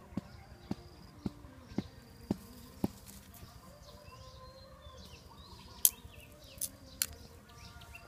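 Birds chirping outdoors, with a regular low knocking about twice a second over the first three seconds. Three sharp clicks come about six to seven seconds in, the first the loudest, as the thin sticks of the trap are handled.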